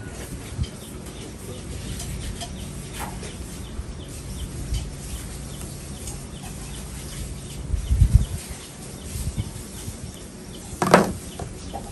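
Chickens clucking in the background, with a sharp call that falls in pitch near the end. A few low thumps come about eight seconds in.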